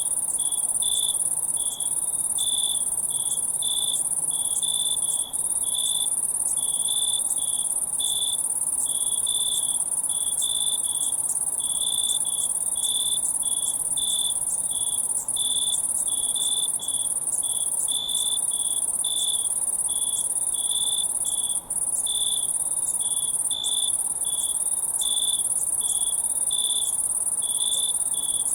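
Crickets chirping in a night chorus: a steady, high-pitched trill with a lower chirp pulsing about twice a second over it.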